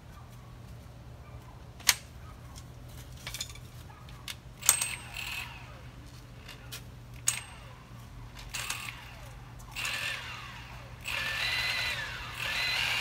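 Metal tools and hardware clinking, several sharp clinks with a short ringing, and near the end a few short bursts of a tool running, the last one the loudest.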